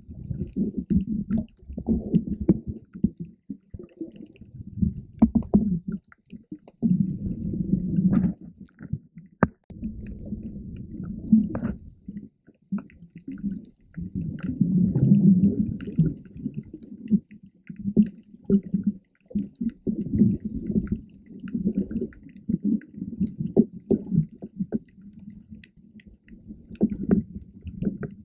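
Muffled underwater water noise picked up by a submerged GoPro: low rumbling and sloshing that swells and fades every second or two, with a few sharp clicks.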